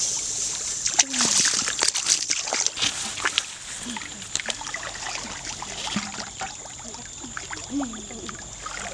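Splashing and sloshing of feet and hands moving through shallow muddy water, in many short irregular splashes, with a few brief snatches of girls' voices.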